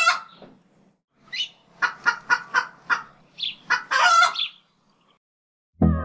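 Chicken clucking in a quick run of short clucks, ending in one longer, louder squawk. Music with a pulsing bass starts near the end.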